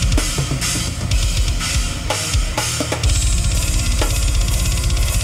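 Metal drum kit being played fast, with cymbal crashes and snare and bass drum hits. From about three seconds in the double bass drums run in a dense, very rapid stream, with quick cymbal ticks over them.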